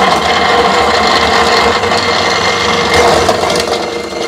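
Electric ice crusher running, its motor grinding ice cubes into crushed ice that pours into a steel bowl. It is a steady, loud grinding that eases off near the end.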